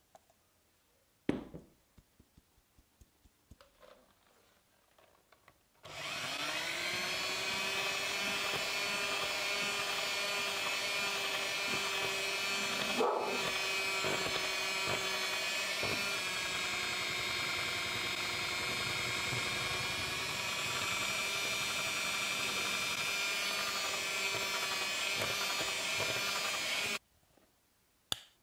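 Electric hand mixer beating flour into a creamed butter batter, running steadily at one speed. It spins up about six seconds in and cuts off suddenly near the end. Before it starts there are a few light taps and one sharper knock.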